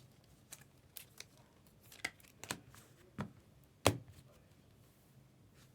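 Trading cards and packs being handled on a table: a string of sharp taps and clicks, about eight, the loudest a little under four seconds in, then quieter handling.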